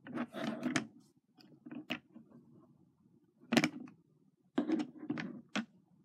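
Hard plastic toy car handled and turned over on a plastic bin lid: irregular clicks and knocks of plastic on plastic, the loudest about three and a half seconds in, with a cluster of them near the end.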